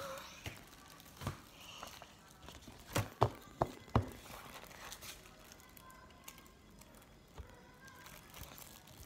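Plastic-wrapped pack of binder paper crinkling and rustling as it is handled, with four sharp knocks in quick succession about three to four seconds in.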